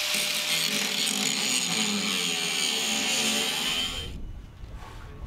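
Angle grinder cutting into a weld on a steel boat hull, grinding out a porous weld bead. The grinder runs steadily and cuts out about four seconds in.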